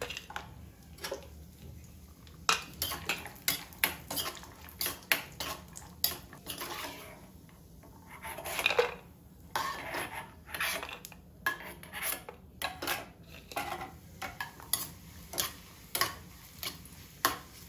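Steel spoon stirring nuts in a small pan: many short, irregular clicks and scrapes of metal against the pan as the dry fruits are roasted in ghee.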